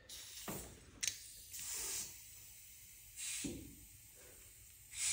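Compressed air hissing in several short bursts through the air-ride system of a vintage EZGO golf cart's freshly installed front air shocks, with a sharp click about a second in.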